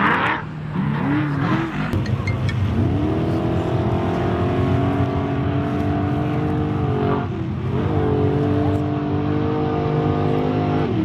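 Unlimited-class trophy truck's engine revving up and down, then held at high revs in a long steady pull that sags slightly. About seven seconds in it eases off briefly, then pulls steadily again.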